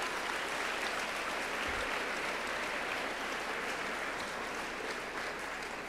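A large audience applauding steadily, easing off slightly toward the end.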